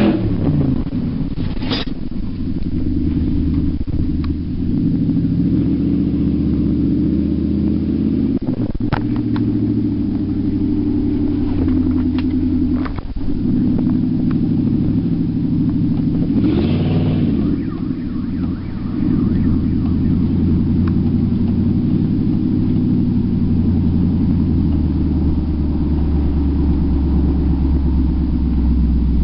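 Nissan Titan's 5.6-litre V8 running with no exhaust system fitted, heard from inside the cab while driving: a loud, steady, low engine note. A little past halfway it revs up briefly and drops back, and a few short knocks come through.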